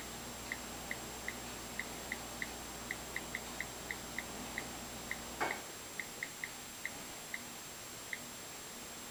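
Faint, unevenly spaced short ticks, about two or three a second, over a low hum and hiss. The hum stops with a click about five and a half seconds in, leaving only hiss.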